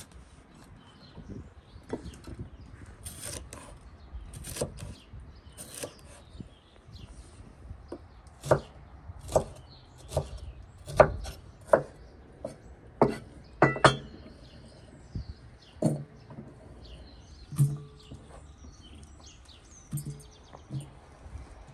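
Irregular sharp knocks and clicks, roughly one a second, some closer together near the middle, over a low background.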